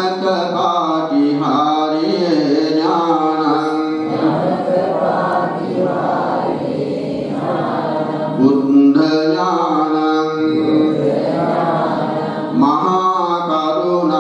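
Theravada Buddhist monks chanting devotional verses through a microphone in long phrases on a few held notes that bend up and down.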